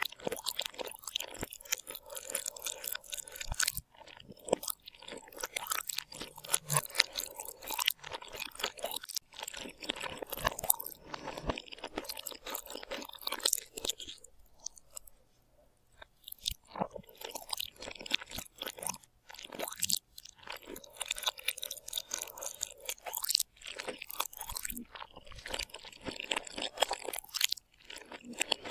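A person chewing and crunching food, with dense, crisp, irregular bites and a short lull about halfway through.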